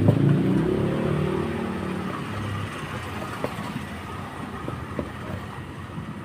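Motorcycle engine running with the revs dropping off over the first couple of seconds, then settling to a steadier, quieter run, with a few light clicks.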